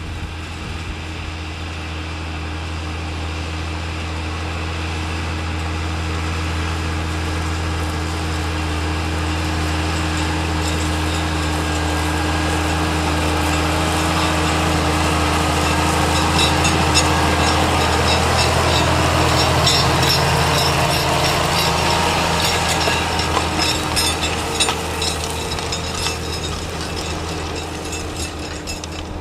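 Massey Ferguson 7495 tractor's diesel engine running steadily under load while ploughing. It comes closer and grows louder, is loudest about two-thirds of the way through with a rapid rattling clatter, then fades as it moves away.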